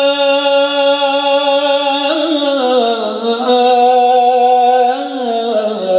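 A man singing an Islamic devotional ibtihal unaccompanied, with no instruments, holding one long melismatic phrase. The held note slides down in pitch about two seconds in, rises a little, then falls again near the end.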